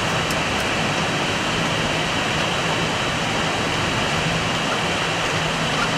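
Steady background noise of an Airbus A320 flight deck: an even rushing sound with a faint low hum underneath.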